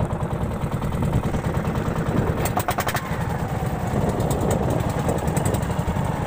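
Bangka's boat engine running steadily with a fast low chugging. About two and a half seconds in, a brief rapid rattle of clicks lasts about half a second.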